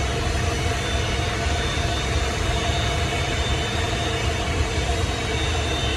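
Boeing 727's Pratt & Whitney JT8D turbofan engines running, heard from inside the cockpit: a steady low rumble with a high whine on top.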